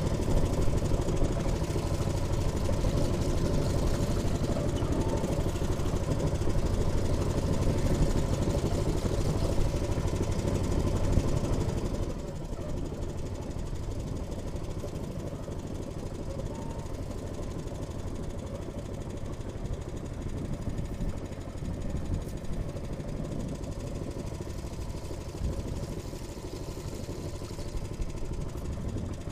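Small fishing boat's engine running steadily, dropping to a lower, quieter pitch of running about twelve seconds in.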